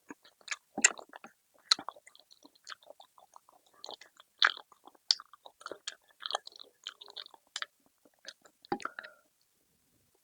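Close-miked chewing and biting of food, with irregular wet smacks and crunchy clicks several times a second.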